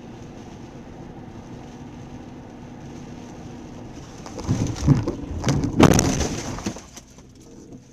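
Steady car-cabin road noise, then about four seconds in a loud burst of rumbling with sharp cracking knocks for two to three seconds, loudest near its middle, before it dies back down.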